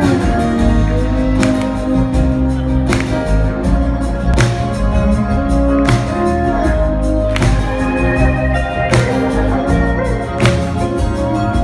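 Live band playing an instrumental groove on electric bass, guitars and keyboard, with a heavy accent about every one and a half seconds.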